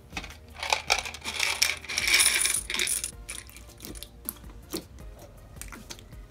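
Crunchy fishbowl-bead slime crackling and popping in quick sharp clicks as a hand presses and squishes it, densest and loudest about one to three seconds in, then sparser.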